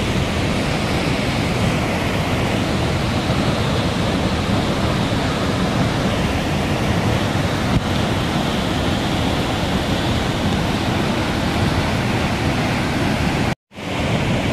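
Muddy floodwater pouring over a rocky waterfall: a steady, even rushing of water that cuts out for a moment near the end.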